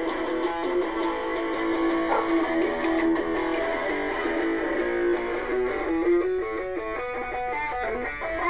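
Electric guitar played through a small 300 mW transformer-coupled germanium-transistor practice amplifier.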